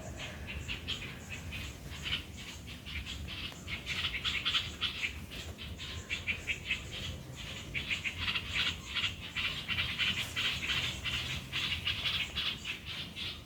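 Many birds calling at once as they settle into their nests at dusk, a dense, unbroken jumble of short high-pitched calls. The speaker calls it chaos.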